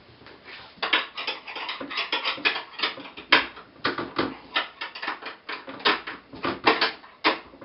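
Spanner clicking and clinking on the nuts and bolts of a wooden market barrow as they are undone: a quick, irregular run of light clicks, several a second, starting about a second in.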